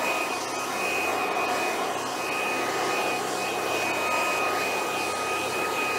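Corded electric leaf blower running steadily, a rush of air with a high motor whine, blowing loosened debris off artificial turf. A second, lower steady tone joins the whine about four seconds in.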